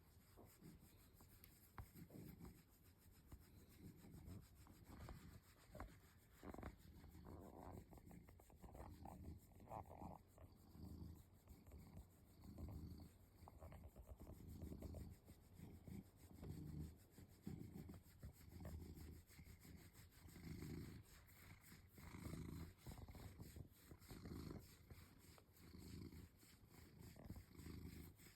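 Domestic cat purring softly, rising and falling in slow pulses about once a second with its breathing, a contented purr while it is being scratched.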